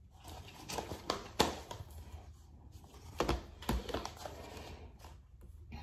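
Plastic DVD cases being handled and stacked: a scatter of light clicks and knocks, with two duller knocks about three and a half seconds in.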